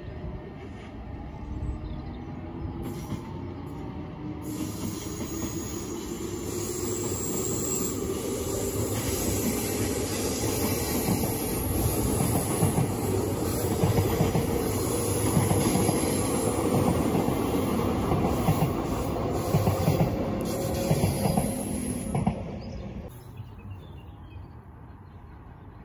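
RER C double-deck electric commuter train running past on the tracks, its rumble and wheel noise growing steadily louder, with a tone that rises in pitch in the first few seconds. The sound cuts off suddenly near the end.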